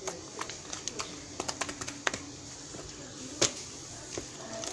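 Irregular light clicks and taps, with one louder knock about three and a half seconds in.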